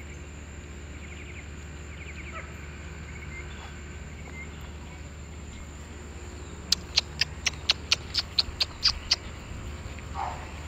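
A quick run of about a dozen sharp, high-pitched animal calls, roughly five a second, starting about two thirds of the way in, over a steady low hum.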